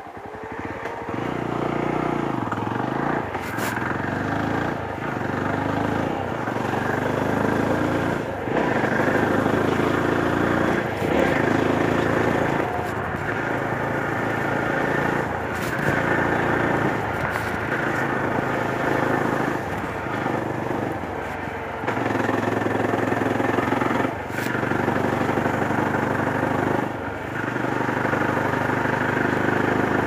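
Yezdi Roadster's single-cylinder engine pulling away from near standstill and revving up through the gears, its pitch rising and briefly dropping at each upshift over the first ten seconds or so. It then runs steadily at road speed, with a few brief throttle lifts.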